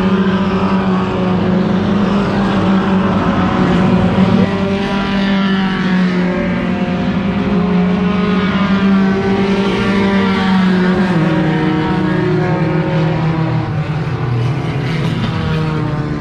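Race car engines running at high, steady revs, the pitch dropping a little about eleven seconds in.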